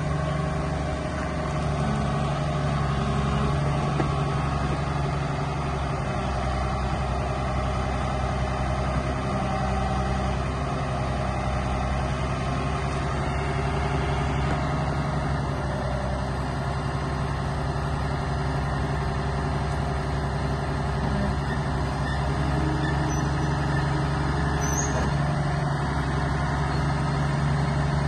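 Caterpillar 140H motor grader's diesel engine running steadily as the machine moves slowly and turns.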